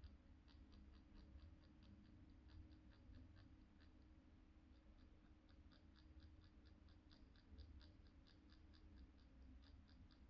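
Permanent-makeup machine running with a faint, steady, deep hum while its needle works pigment into the brow, with about three to four light ticks a second from the shading strokes.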